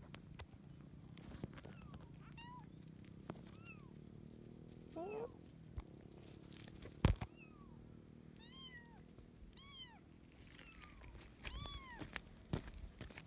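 A young kitten meowing over and over, about nine short high-pitched mews that each rise and fall in pitch. A sharp knock about seven seconds in is the loudest sound.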